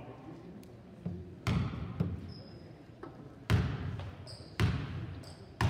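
Basketball dribbled on a hardwood gym floor as a free-throw shooter's pre-shot bounces: about five bounces at uneven intervals, each with a short echo.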